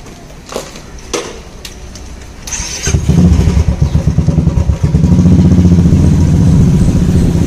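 A few knocks and clicks, then a motorcycle engine starts about three seconds in and keeps running with a loud, steady, low pulse as the bike rides off.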